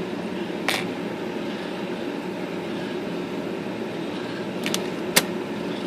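IBM Selectric II electric typewriter running with a steady motor hum, with sharp mechanical clacks about a second in and a quick cluster near the end, the loudest last, as the backspace is tried. The backspace has been stalling and catching on its arm.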